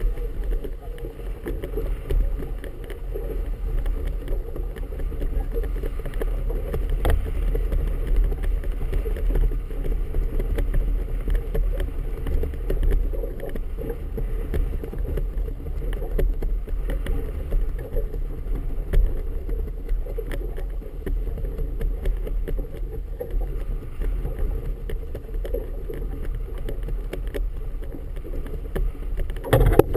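Steady wind rumble on the microphone and water sloshing against a small boat's hull in a moderate chop, with a sharp knock about seven seconds in and another near the end.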